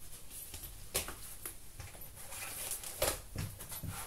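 Cardboard LP record covers being handled on a table: a few light taps and rustles as the sleeve is lowered and set down.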